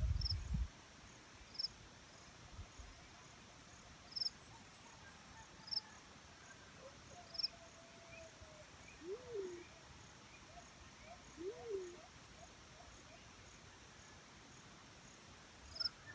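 Black-chinned fruit dove giving two low cooing notes a couple of seconds apart, each rising and then falling. Short high chips from another small bird recur throughout, and there is a brief low rumble at the very start.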